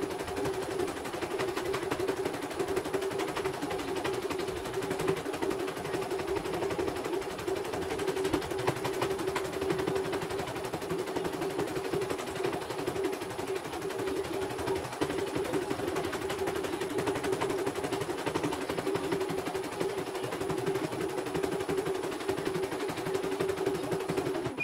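CNY portable embroidery machine stitching a design at speed: a steady, rapid run of needle clicks over a constant hum, stopping abruptly near the end.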